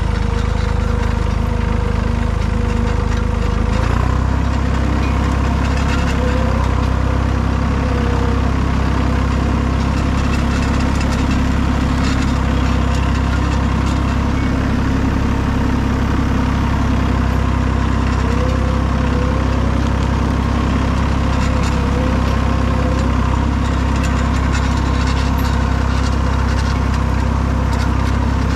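Utility tractor's engine running steadily as the tractor drives, with a change in engine note about four seconds in.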